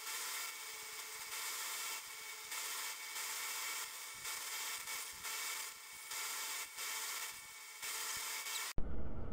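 Belt sander running with a small piece of wood held by hand against the moving belt, sanding it down to a point. The grinding swells and eases roughly once a second as the piece is pressed on and eased off. It cuts off abruptly near the end, and a brief knock follows.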